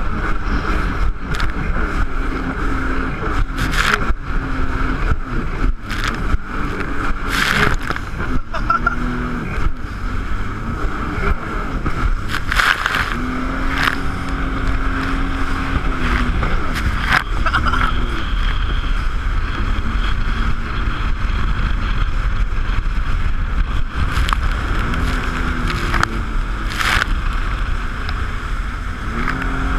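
Jet ski engine running, its pitch rising and falling several times as the throttle is worked, over a steady rushing noise with occasional sharp knocks.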